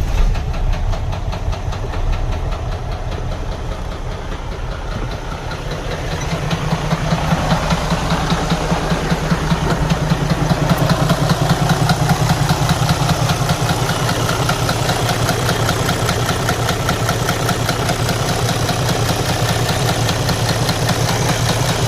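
Detroit Diesel DD13 inline-six diesel engine running with a loud, rhythmic knocking that grows louder about six seconds in. The knock comes from damaged camshafts, which throw the engine out of time and make it run poorly, though it sounds like an internal engine failure.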